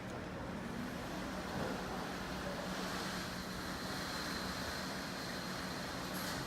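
Steady running noise of a vehicle, with a faint high whine in the middle.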